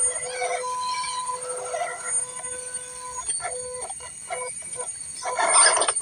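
Small electric drive motors and gearboxes of 1/12-scale RC crawlers whining at steady pitches as they crawl through mud. The whine cuts in and out with the throttle, and bursts of louder scrabbling noise come near the end.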